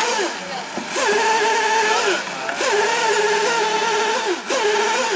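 Small combustion engine of a radio-controlled racing model boat running at high revs, its pitch dropping sharply and climbing back three times as the throttle is eased and opened again.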